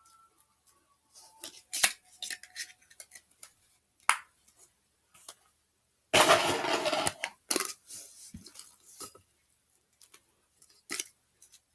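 Small clear plastic containers and lids being handled and set down: scattered clicks and light knocks, with a denser noisy stretch of about a second around the middle.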